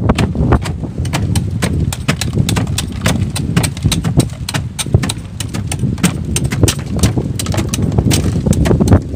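Bait being pounded: rapid, uneven knocking, several sharp strokes a second, over a steady low rumble.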